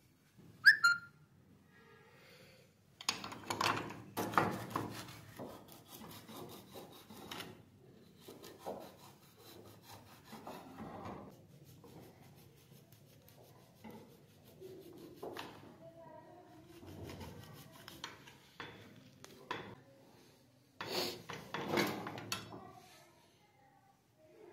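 Hand file scraping across steel scissors held in a vise, in irregular strokes, loudest in a spell about three seconds in and again near the end. A short, high metal squeal about a second in.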